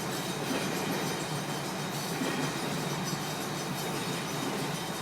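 Freight train cars rolling past, a steady noise of steel wheels on the rails.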